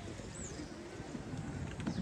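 Outdoor football stadium ambience: a low steady rumble with faint distant voices and a few light knocks.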